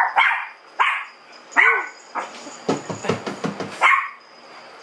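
Small dog barking in short, separate yaps, about four in all, with a quick run of clicking or tapping between them near the middle.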